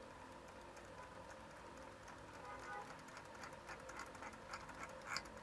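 Faint small clicks and taps from hands working on an open transistor radio's dial mechanism, starting about halfway in and coming more often toward the end, over a faint steady hum.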